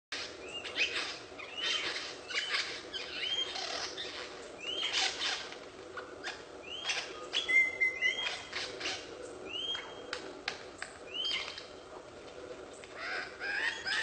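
Superb lyrebird singing a run of mimicked calls. Short hooked whistles that rise and bend over repeat about once a second, mixed with short scratchy notes, with a brief steady whistle a little past halfway.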